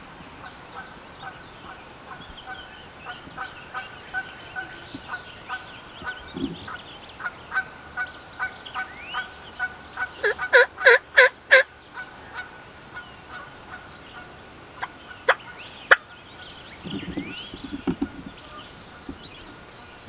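Wild turkey gobbling: one loud, rapid rattling gobble of five or six quick notes about halfway in. Before it comes a long run of quieter short, evenly spaced call notes, with songbirds singing throughout.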